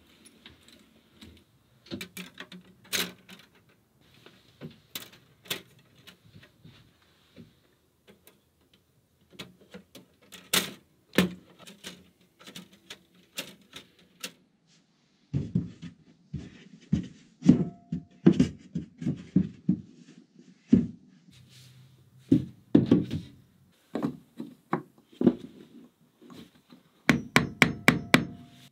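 Hammer striking wood: irregular knocks and thuds, sparse at first, then frequent, with a quick run of taps near the end.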